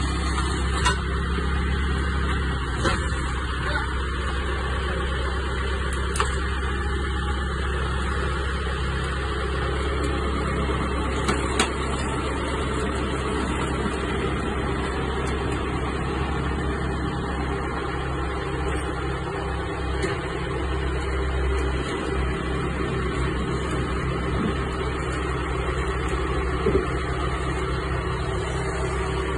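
Farm loader tractor's diesel engine running steadily at idle close by, with a few sharp knocks now and then.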